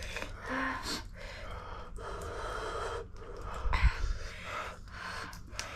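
Sharp gasping breaths and sniffs from people eating very spicy ramen, drawing air to cool the burn. There is a low thump about two-thirds of the way through.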